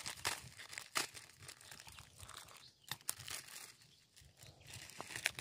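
Plastic wrapper of an instant-noodle packet crinkling and tearing as it is cut open, with irregular sharp crackles.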